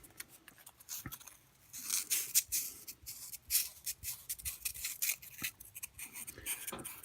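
Fine 600-grit sandpaper scratching by hand on the copper commutator of a brushed RC motor's armature, in a series of quick, light strokes that start about two seconds in.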